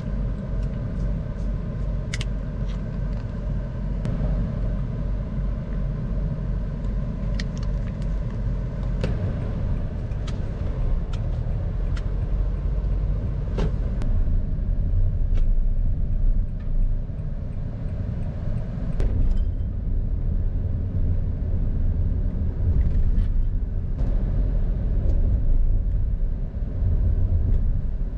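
Honda car driving, heard from inside the cabin: a steady low engine and road rumble, with a few faint clicks.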